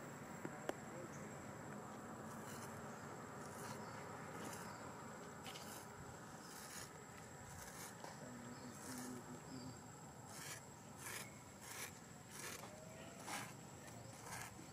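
Faint outdoor ambience: a low, even hiss with insects chirping in short, high-pitched pulses that come more often after about ten seconds.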